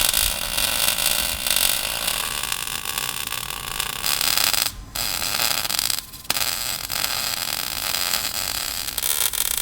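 Electric welding arc crackling and sizzling in three long runs, with two short breaks about five and six seconds in, as steel conduit is welded onto the exhaust header.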